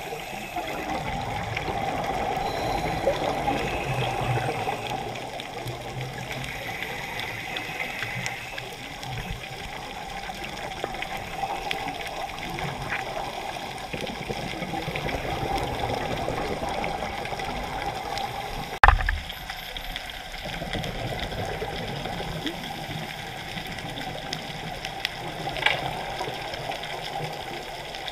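Muffled underwater rushing picked up by a scuba diver's camera in its waterproof housing. A single sharp knock comes about two-thirds of the way through, with a smaller click near the end.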